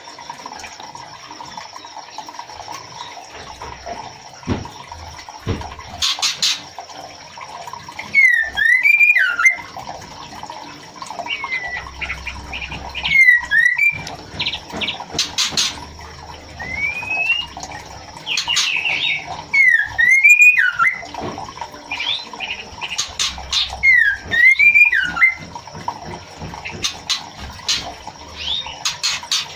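White-rumped shama (murai batu) calling: short whistled phrases that swoop up and down, repeated about every three to four seconds, with sharp clicks between, over a steady background hum. It is offered as a female's call to a male, used to bring birds into breeding condition.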